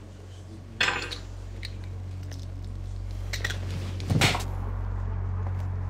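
A metal spoon clinks sharply about a second in, then clatters loudly just after four seconds as it is flung and strikes a hard surface. A low steady hum grows slowly louder underneath.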